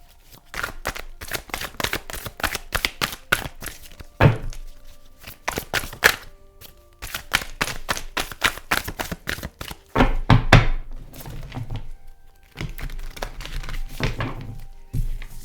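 Tarot cards being shuffled: a rapid run of card clicks, with a few heavier thumps of the deck against the table. Quiet background music plays underneath.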